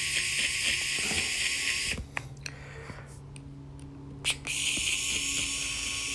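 Light clicks and scraping of a small screwdriver loosening the landing-gear screws, over a steady hiss that drops away for a couple of seconds in the middle.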